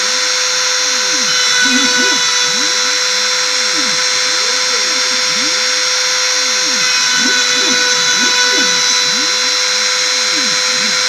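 Homemade CNC router milling wood: its rotary-tool spindle runs with a steady high whine, while the stepper motors driving the axes sing in glides that rise and fall with each move.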